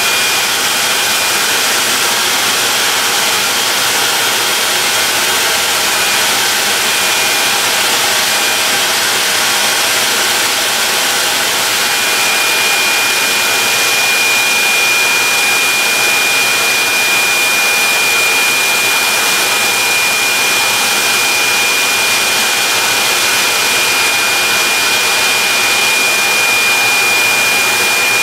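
Spray gun on an air hose spraying catalyzed conversion varnish: a loud, steady rush of air and spray, with a thin high whine that holds steady from about halfway through.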